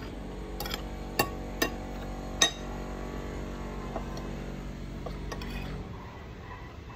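Four sharp clinks of cutlery against a plate in the first two and a half seconds, over a steady low hum.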